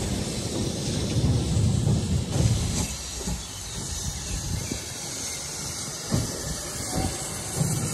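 Steam train rumbling close by for the first two to three seconds. Then GWR Manor-class 4-6-0 No. 7812 'Erlestoke Manor' approaches from a distance, its faint exhaust beats coming over a steady hiss.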